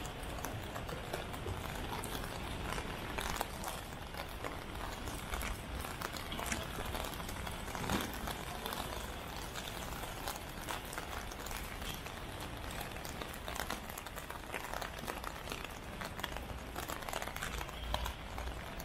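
Rain on a city street: a steady, dense patter with many small ticks and taps.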